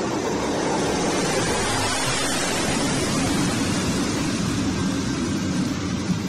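C-130J Super Hercules' four turboprop engines and propellers running as the transport aircraft rolls along the highway, heard as a steady, loud rushing noise.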